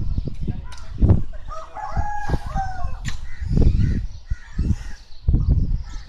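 A rooster crowing once, one wavering call of about a second and a half starting near the middle, over low rumbles and thuds.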